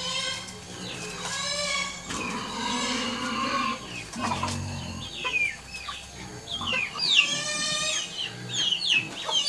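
Domestic chickens clucking and calling: a few drawn-out calls, then quicker short, sharp clucks and cackles in the second half.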